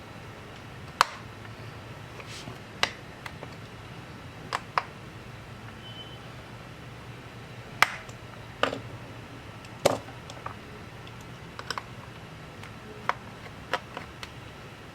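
Scattered sharp clicks and taps, about a dozen at irregular intervals, over a steady low hum.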